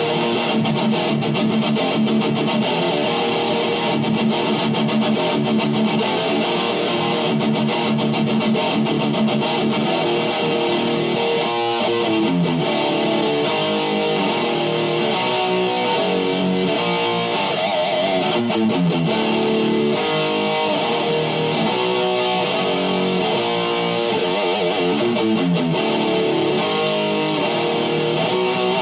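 Distorted electric guitar playing fast extreme-metal riffs with rapid picking, changing to a different riff about twelve seconds in.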